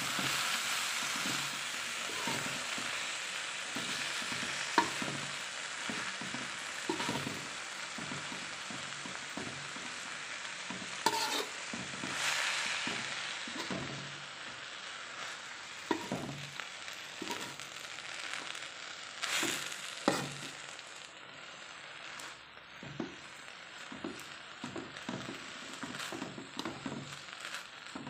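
Chopped green fern sizzling as it is stir-fried in an aluminium wok, with the stirring utensil scraping and knocking against the pan every second or so. The sizzle gradually dies down as it goes on, leaving the knocks and scrapes more prominent.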